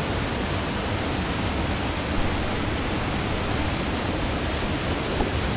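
A swollen river rushing steadily, its water running high.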